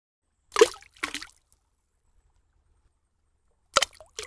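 Cartoon plop and splash sound effects: two quick liquid plops about half a second apart as an egg drops into a bucket of paint, then another quick pair near the end.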